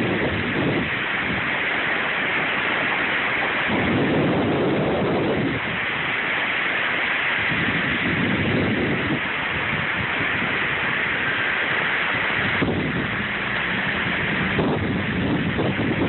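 Heavy rain and strong wind in a thunderstorm, a steady rushing noise, with low rumbling surges several times.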